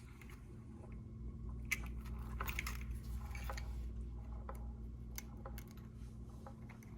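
Faint scattered clicks and rustles of small plastic parts of a micro RC crawler being handled and test-fitted together, over a steady low hum.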